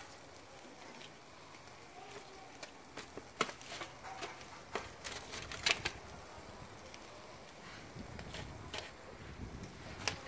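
Meat grilling over charcoal on a kettle grill: a faint steady sizzle with scattered sharp pops and crackles.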